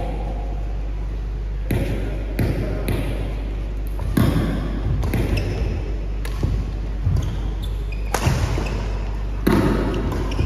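Badminton doubles rally: racket strings hitting the shuttlecock in a run of sharp smacks, irregularly spaced about half a second to a second apart, mixed with players' footsteps on the court.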